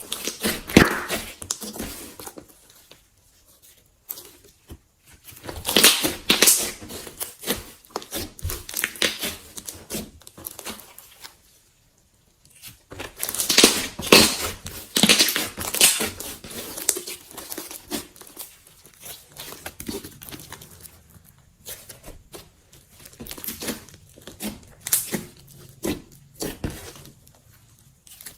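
Slime being squeezed and stretched by hand, making dense sticky clicks and pops. They come in several bursts a few seconds long, with short pauses between.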